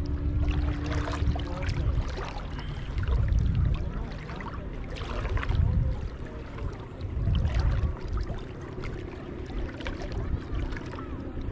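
Shallow seawater sloshing and splashing close to the microphone, with low rumbling swells about every two seconds. A faint steady motorboat hum is heard for the first couple of seconds and again near the end.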